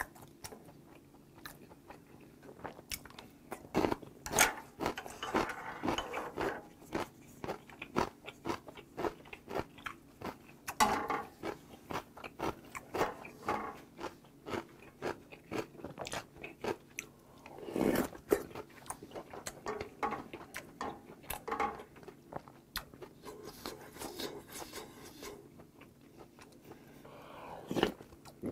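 Close-miked eating: chewing and crunching food, with wet mouth clicks, and several louder slurps of hot soup from a spoon, one of them near the end.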